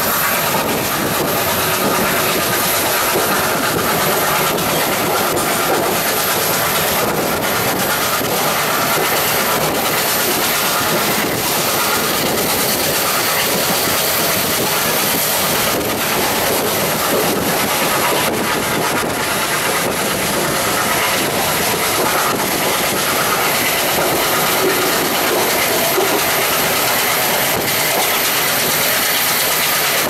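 Passenger train coach running at speed, heard from inside the coach: a steady rumbling run with the wheels clicking over rail joints. There is no horn.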